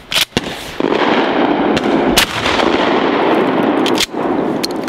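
12-gauge pump-action shotgun firing a slug: a sharp crack early on, with a loud steady rushing noise through the middle. Near the end the pump is racked with short clacks as the spent hull ejects.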